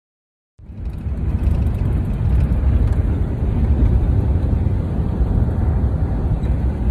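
Steady low rumble of a moving car's cabin, with wind buffeting the phone's microphone; it starts abruptly about half a second in.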